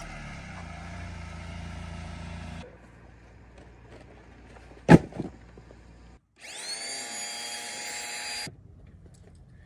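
A vehicle's low, steady engine-and-road rumble for the first few seconds, then a single sharp knock about five seconds in. Near the end an electric air pump spins up, its pitch rising quickly then holding steady for about two seconds while it inflates an inflatable boat, and cuts off suddenly.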